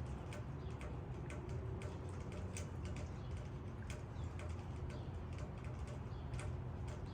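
Raindrops falling on leaves, the individual drops ticking irregularly over a steady low rumble.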